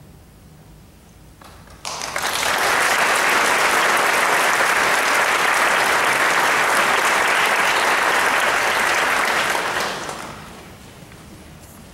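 Concert audience applauding, breaking out about two seconds in and dying down near the end.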